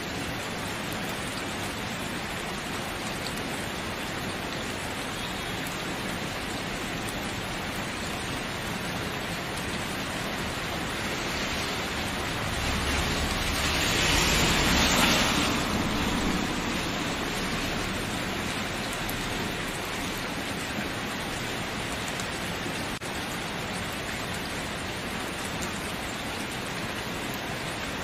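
Steady rain falling, a dense even hiss of drops that swells louder for a few seconds midway before easing back.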